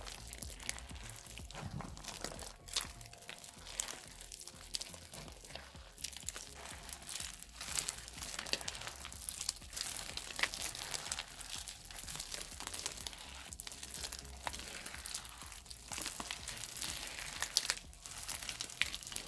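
Floam slime made of clear glue and polystyrene beads being kneaded and squeezed by hand, the beads crackling and crunching in dense, irregular clicks.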